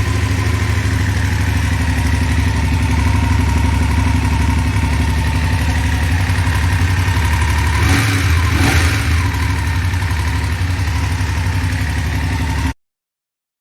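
BMW F850GS parallel-twin engine running at idle, with the pitch rising briefly twice about eight seconds in. A mechanic hearing this recording said it sounds like a cam chain tensioner issue. The sound cuts off suddenly near the end.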